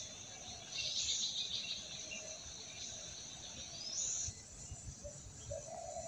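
Outdoor rural ambience: steady high-pitched insect chirring with a few short bird calls, one rising call about four seconds in.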